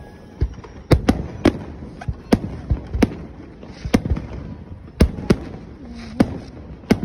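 Aerial fireworks shells bursting: about a dozen sharp bangs at irregular intervals, some coming two or three within a second, over a continuous low rumble.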